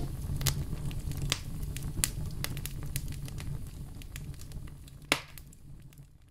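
Low rumble with scattered crackles and clicks, with one louder click about five seconds in, fading out.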